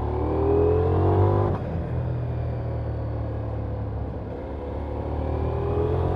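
2023 Ducati Diavel V4's 1158 cc V4 engine under throttle, heard from the rider's seat. The revs climb for about a second and a half, drop sharply, run steadier, then climb again near the end.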